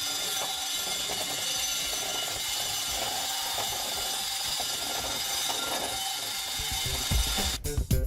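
Makita power tool spinning a wire brush against rusted cast iron, a steady whirring scrub as it knocks the surface rust off. It stops near the end and gives way to guitar music.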